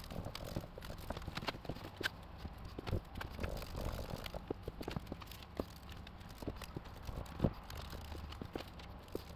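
Brush dabbing resin into wet chopped strand mat on a fiberglass mold: irregular light taps and clicks, several a second, with one sharper knock about seven seconds in. A low steady hum sits underneath.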